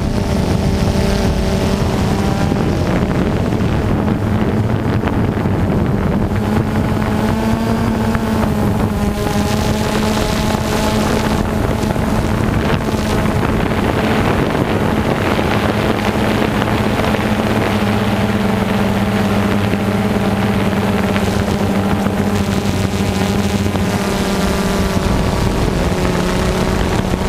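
Quadcopter drone's electric motors and propellers humming steadily, the pitch wavering a little as it manoeuvres, with wind buffeting the microphone.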